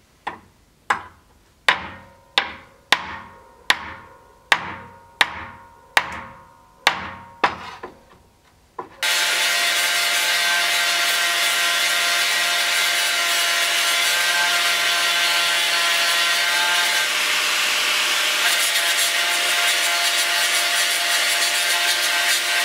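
A hammer strikes metal pins set in a knife's wooden handle about a dozen times, roughly one blow every half second, each with a short ring. About nine seconds in, an angle grinder starts and runs steadily as it grinds the wooden handle to shape.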